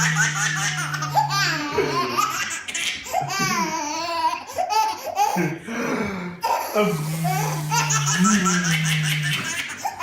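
A baby laughing in repeated fits of squealing giggles. A steady low droning tone sounds under the laughter twice, for a couple of seconds each time, near the start and again about seven seconds in.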